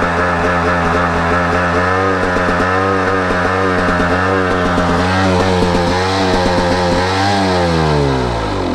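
KTM two-stroke dirt bike engine hanging at high revs and not dropping back to idle, the pitch held high with a slight waver, then falling away steeply near the end as it winds down. The rider means to check for an air leak as the cause of the hanging revs.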